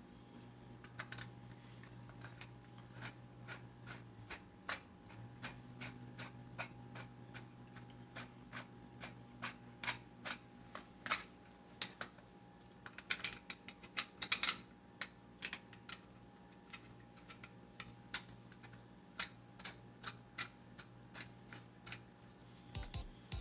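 Small metal clicks and clinks of a wrench and nuts and bolts against the chainsaw mill's steel parts, irregular at about two or three a second, with a louder flurry about halfway through, over a faint steady hum.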